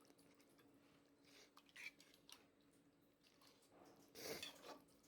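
Near silence: kitchen room tone with a few faint, brief handling noises, the longest about four seconds in.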